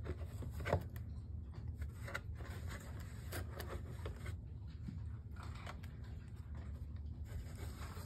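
Faint scraping and light ticking as a cat rubs against a cardboard box and shifts her paws on a tile floor, one slightly louder scrape just under a second in, over a low steady hum.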